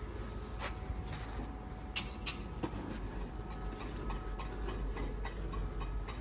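Irregular light clicks and taps, with two louder ones about two seconds in, over a steady low hum.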